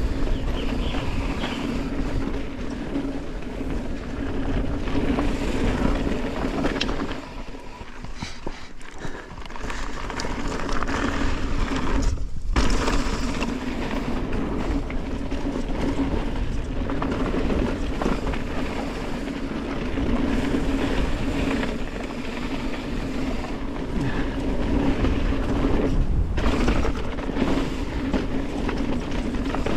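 Mountain bike rolling fast down a dry dirt trail: a continuous rumble of knobby tyres on packed dirt and gravel, with the bike rattling over the bumps. It eases off for a couple of seconds about a quarter of the way in.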